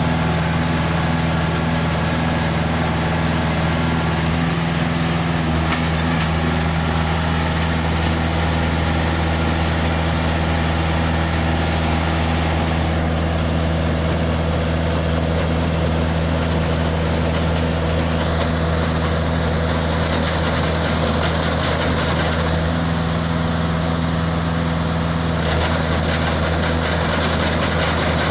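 Engine of a self-loading concrete mixer running steadily with a constant low hum. A higher hissing noise joins in now and then in the second half.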